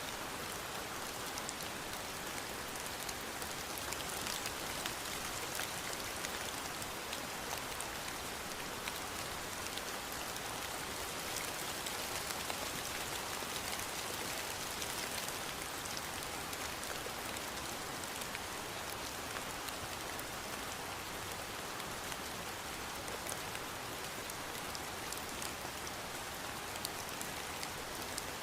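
Steady rain falling, an even hiss with many fine drop patters throughout.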